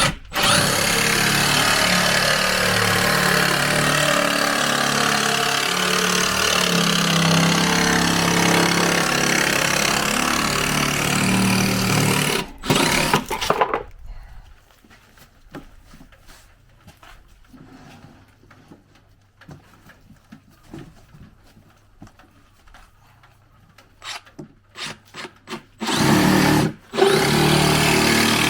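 Makita JR187DZ 18V cordless reciprocating saw cutting through 12 mm plywood, running steadily for about twelve seconds and then stopping. After a quieter stretch of clicks and knocks, the saw is triggered in several short bursts and runs loud again near the end.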